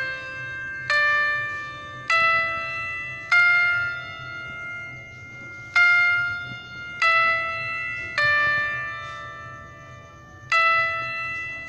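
Background music: a slow melody of single bell-like notes, each struck and ringing out, about one a second.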